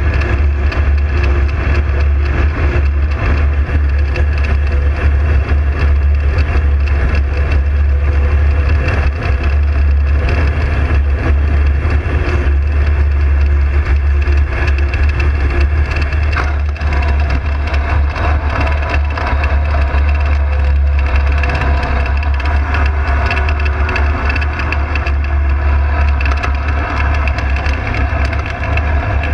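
Loud, steady wind rumble and crackle on the microphone of a camera mounted on an ultralight trike's wing frame, over the trike's engine running.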